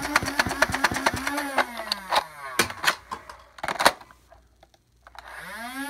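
Modified Nerf Raven blaster firing a quick string of darts over the whine of its spinning motors, the whine falling away as they spin down. A few loud plastic clacks follow as the magazine is swapped. After a short lull the motor whine rises again as the blaster spins back up.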